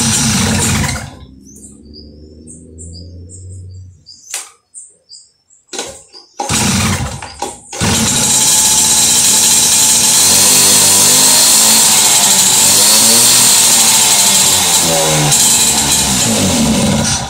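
Two-stroke mobilete (moped) engine running loud, then dying away about a second in, firing in a few short bursts, and catching again around seven seconds to run at high revs with a pitch that wavers up and down before cutting off abruptly near the end. The uneven running and stalling go with a carburettor the owner says is in very bad shape. Birds chirp in the quiet gap.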